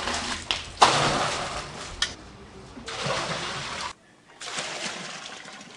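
Water poured from a bucket into a metal drum: a sudden loud gush about a second in, then a second, quieter pour.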